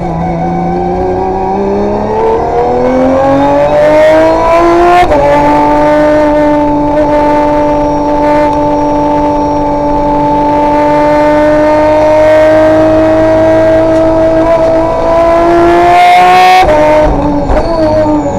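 Aston Martin Vulcan's naturally aspirated 7-litre V12 race engine accelerating hard, rising in pitch for about five seconds. It then holds a high, steady note at full throttle for about eleven seconds. Near the end it lifts off suddenly and the pitch falls away.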